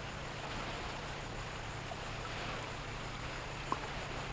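Steady wind and light water lapping around a small boat: an even, unbroken rush, with one faint tick near the end.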